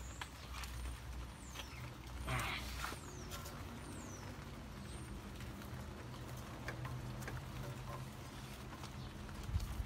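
Rustling and light clicks of gloved hands handling ignition wires in a car's engine bay, over a low steady rumble, with a louder rustle about two seconds in and a thump near the end. A few faint, high chirps falling in pitch come from birds.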